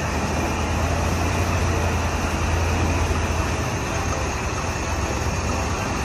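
Diesel engine of a KAMAZ truck crane running as the crane creeps up onto a lowboy trailer: a steady low drone over a wide rushing noise, the drone easing off a little past halfway.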